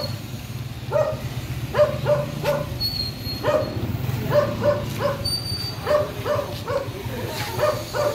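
A dog barking over and over, short barks about two a second in quick runs, over a steady low hum.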